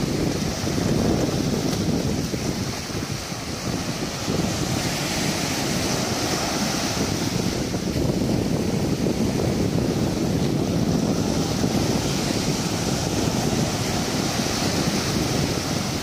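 Waves breaking and washing over the shallows in a steady hiss that swells and eases. Wind rumbles on the microphone underneath.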